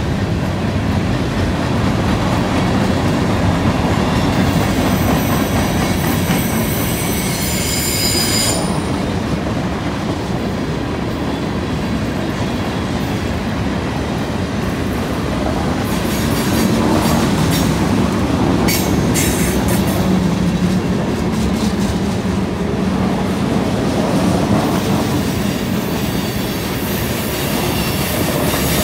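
Freight train cars rolling past on a curve: a steady rumble of steel wheels on rail, with high-pitched wheel-flange squeals about five to eight seconds in and again briefly near the middle.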